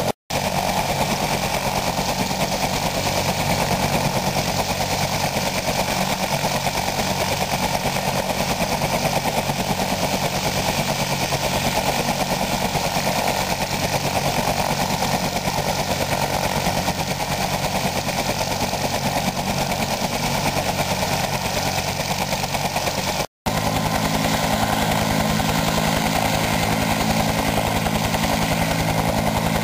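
Bell UH-1 Iroquois helicopter running on the ground with its main rotor turning: a steady turbine whine over a rapid thumping beat from the two-blade rotor. The sound cuts out briefly twice, and after the second break the low rotor thump is stronger.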